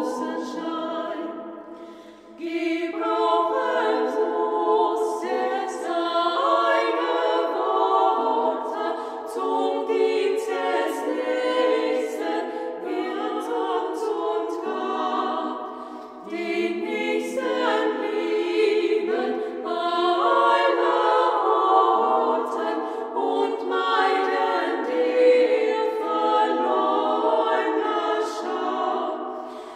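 Three voices singing a Christmas carol a cappella in harmony, phrase after phrase, with short breaths between phrases about two seconds in and again about halfway through.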